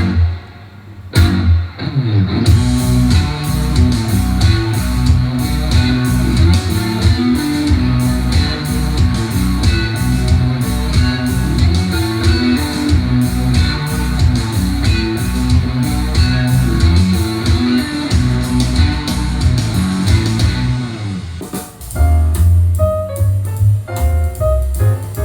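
Recorded music played through Edifier 1280 speakers. After a short drop about a second in, a guitar-led track with drums plays. Near the end it gives way to a piano piece.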